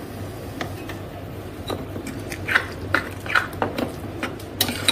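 A spoon stirring thick semolina-and-yogurt batter in a bowl: after a quiet start, a run of wet scraping strokes and clicks of the spoon against the bowl from about two seconds in.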